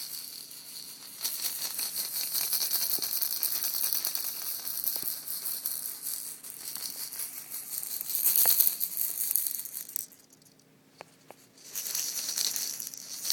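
Continuous fine rattling and rustling, as of something being shaken or handled. It stops for about two seconds near the end, then starts again.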